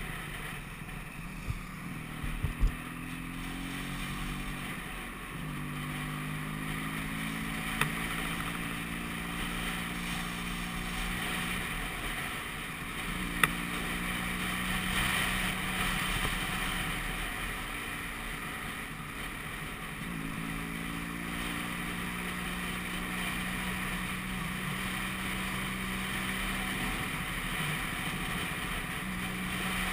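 Vespa PX200 scooter's single-cylinder two-stroke engine running on the move, its note steady for stretches, then easing off and picking up again several times, over steady road and wind rush. A few sharp knocks stand out, the loudest about 13 seconds in.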